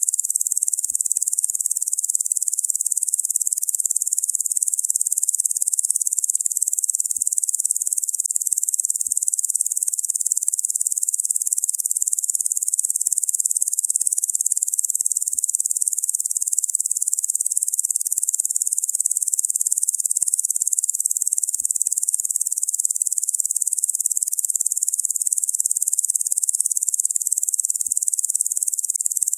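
Locusts buzzing in a steady, unbroken high-pitched hiss that neither pulses nor changes.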